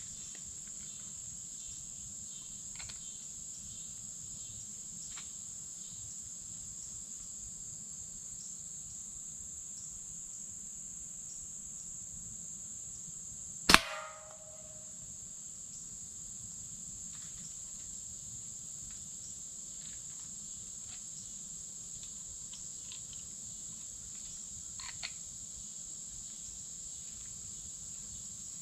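A slingshot shot: one loud, sharp crack about halfway through, with a short ringing tail, and a much fainter click with a brief ring near the end. Insects trill in a steady, high-pitched drone behind it.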